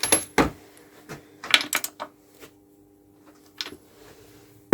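Hard metal objects, most likely hand tools, clinking and knocking as they are handled: two sharp clicks at the start, a quick cluster about a second and a half in, and one more near the end.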